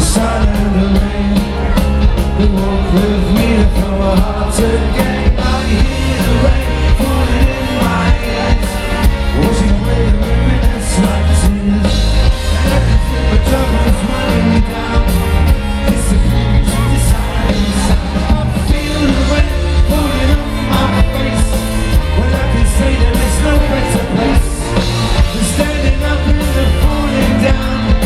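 Ska-pop band playing live with a lead singer over a driving drum beat and bass.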